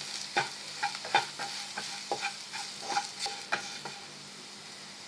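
A utensil stirring and scraping around a kadai as chilli, pepper and cumin powders fry in hot oil with ginger, garlic, green chillies and curry leaves, over a steady sizzle. The irregular scrapes and knocks stop about four seconds in, leaving only the sizzle.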